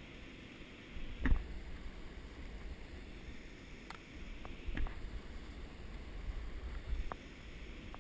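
Water sloshing as a wooden-hoop landing net is worked in a river, over low rumbling handling noise. There are a few sharp knocks, the loudest about a second in and two more later.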